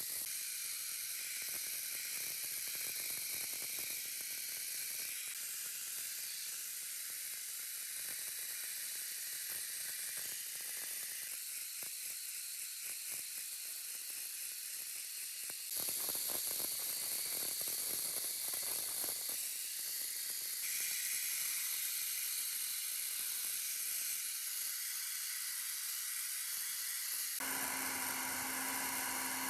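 Steady high hissing, as of air or spray from a workshop tool, changing abruptly several times. Near the end a steady humming motor joins in.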